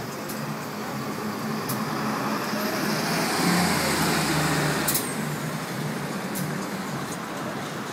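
Street traffic passing close: a large tour bus drives by, its engine and tyre noise swelling to a peak and easing off. A sharp click comes about five seconds in.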